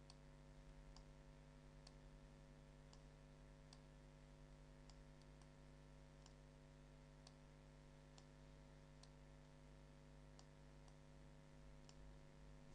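Faint computer mouse clicks, about one a second, while mask points are dragged in editing software, over a low steady electrical hum. Otherwise near silence.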